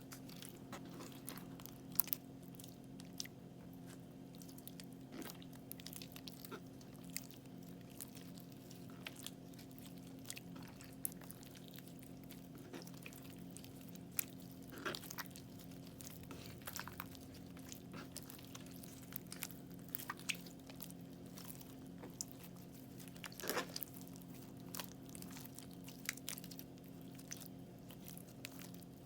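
Crunchy slime being handled, crackling and popping in irregular sharp clicks, with a few louder crunches, over a faint steady hum.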